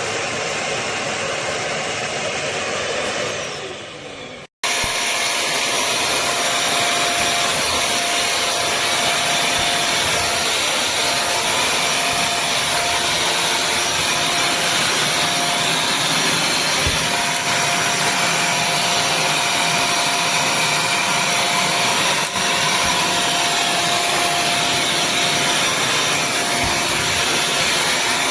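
Bissell CrossWave HydroSteam wet-dry vacuum's motor running, then winding down in pitch and level about three seconds in, as when switched off. After a sudden cut, the vacuum runs again steadily with a faint constant whine.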